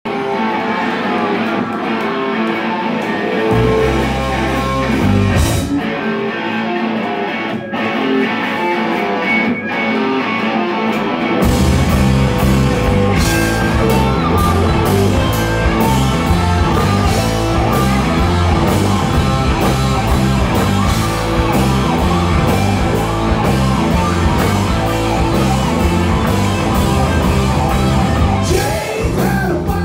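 Live rock band playing through a club PA, heard from within the crowd: a sparser electric guitar and keyboard opening, then the full band with bass and drums comes in about eleven seconds in and plays on loudly.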